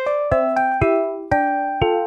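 Background music: a keyboard tune of single struck notes, two to four a second, each fading before the next.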